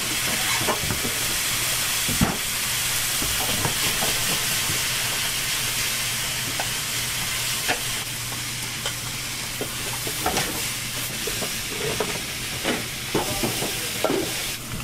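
Udon noodles sizzling in a frying pan as they are stir-fried, with frequent light clicks and scrapes of cooking utensils against the pans. A steady low hum runs underneath.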